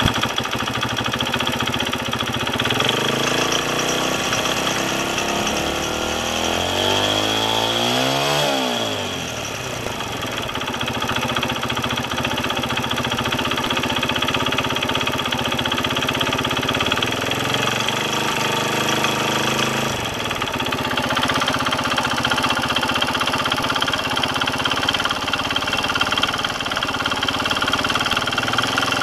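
Kawasaki KSR110 single-cylinder four-stroke engine running at idle, the revs rising and then dropping back about eight to nine seconds in. It carries an abnormal mechanical noise that the owner attributes to the piston or cylinder head, which appeared after a new cam chain tensioner was fitted.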